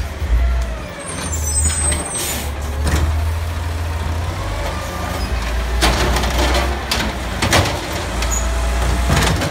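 Peterbilt automated side-loader garbage truck running with a steady diesel rumble while its hydraulic arm grips a trash cart and lifts it to dump. A short hiss of air about two seconds in, then several clunks of the cart and arm from about six seconds on.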